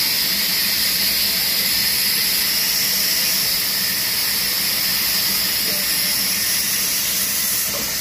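Large vertical band saw ripping a timber beam lengthwise: a steady high-pitched hiss from the blade cutting wood, with a faint low hum underneath.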